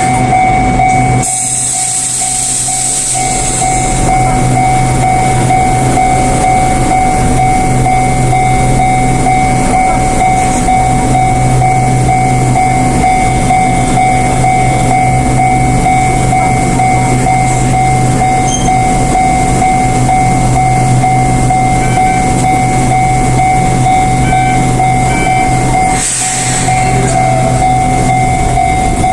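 Japanese railway level-crossing alarm ringing steadily with its high electronic bell tone, while an Enoshima Electric Railway (Enoden) train runs through the station crossing. A brief high hiss comes about a second in and again near the end.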